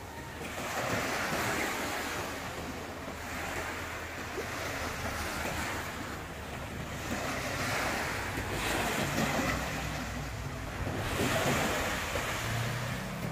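Small waves washing onto a sandy beach, the hiss of water rising and falling in surges a few seconds apart, with wind rumbling on the microphone.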